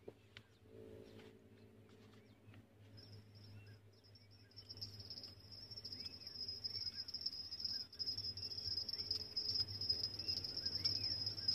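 An insect trilling continuously at one high pitch. It starts faintly about three seconds in, grows louder a second or so later, then holds steady.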